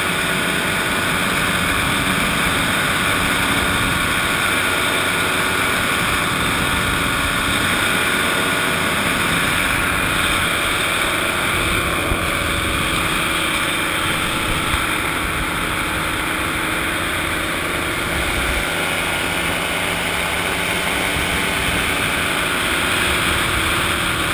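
Fresh Breeze XCitor paratrike's engine and propeller running at a steady cruise setting in flight, an even drone with no change in throttle.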